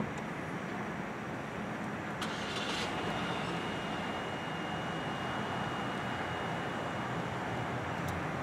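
Steady outdoor traffic noise, with a sharp click about two seconds in and a faint, thin high tone held for several seconds after it, then another click near the end.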